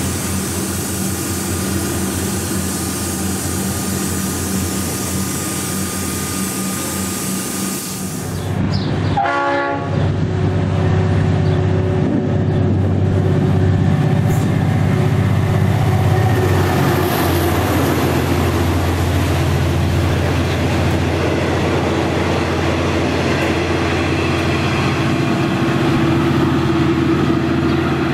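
V/Line A class diesel-electric locomotive running under load with a passenger train, a steady low engine drone. About a third of the way in there is a short horn blast, and after it the engine is louder as the train comes closer.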